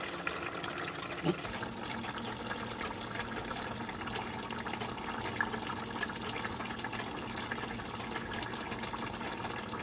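Kimchi stew simmering in a stainless steel pot, a steady bubbling with small pops, after a short knock about a second in.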